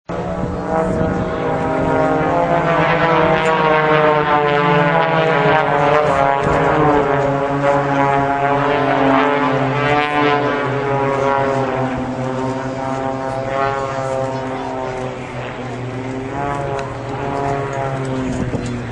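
Formation of propeller aircraft flying overhead, a loud engine drone of several planes whose pitch slides up and down as they pass, easing off somewhat in the last few seconds.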